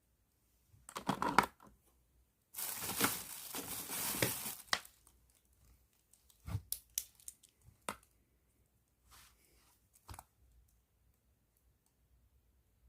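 A plastic bag crinkling as it is handled: a short rustle about a second in, then a longer rustle of about two seconds, followed by a few separate clicks and taps.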